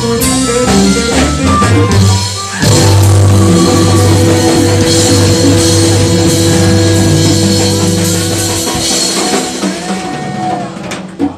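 Live electric blues band (electric guitars, bass guitar, drum kit, keyboard) playing: a quick run of short notes, then a long held chord with ringing cymbals from about two and a half seconds in. The low end drops out near the end and the sound fades, as at the close of a song.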